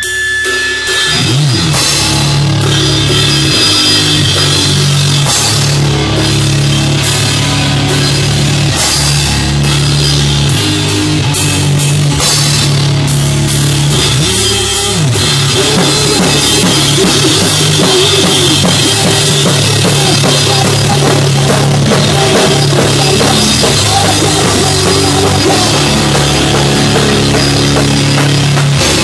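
Punk band playing live at full volume: a drum kit with frequent cymbal crashes over heavy sustained bass guitar notes and guitar. A steady high tone stops about a second in as the band comes in.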